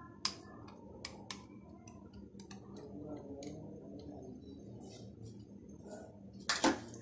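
A metal spoon clinking against stemmed drinking glasses as the sharbat is stirred: a few sharp, light ticks scattered irregularly, with a louder knock near the end.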